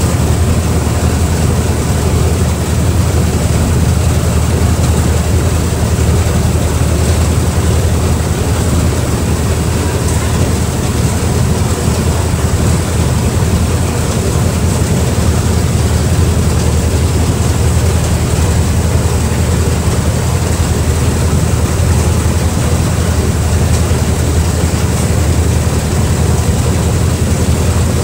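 Speedboat engine running steadily at speed, a loud unchanging low drone, with wind on the microphone and the rush of the wake and spray.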